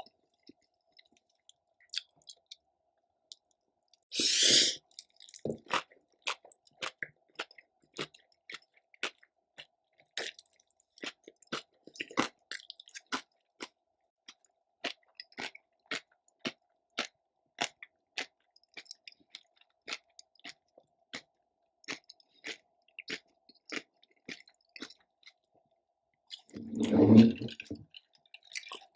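Close-miked chewing with wet mouth clicks, about one to two a second. There is a louder crunchy bite about four seconds in and a louder low sound near the end.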